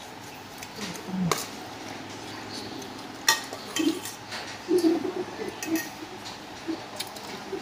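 Metal spoons clinking and scraping against a stainless steel basin of rice while two people eat from it: scattered sharp clinks, the loudest about three seconds in.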